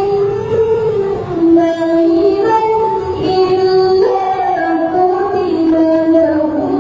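A woman's voice singing a slow melody in long held notes that step and slide from pitch to pitch, with music behind it.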